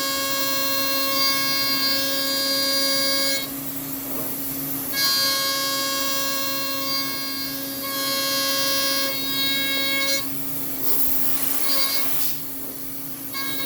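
Router spindle of a home-built PrintNC CNC running at a steady whine while an end mill takes an adaptive roughing pass in 6061 aluminium. A ringing, horn-like cutting tone sits on top of the whine and comes and goes as the tool enters and leaves the cut. It drops out about three and a half seconds in, returns about five seconds in, and drops again around ten seconds.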